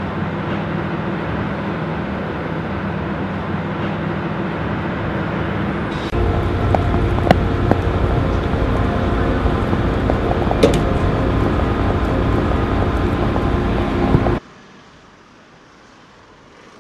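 Dockside machinery of a cargo ship at the wharf running with a steady hum. It grows louder partway through, with a few sharp metallic clanks. About three-quarters of the way through it cuts off suddenly to faint background noise.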